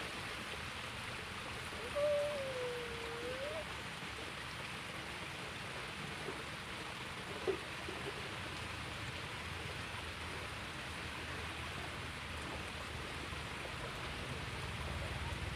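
Steady hiss of a small stream's running water. About two seconds in, a single short whistled call dips and then rises in pitch.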